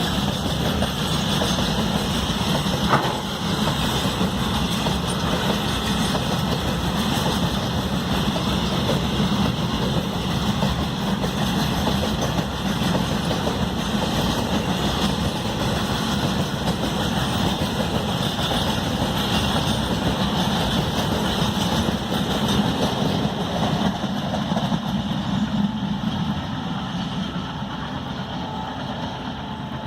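ALCO diesel-electric locomotive's 16-cylinder 251 engine chugging steadily with a deep throb, a brief click about three seconds in. The sound eases off slightly near the end.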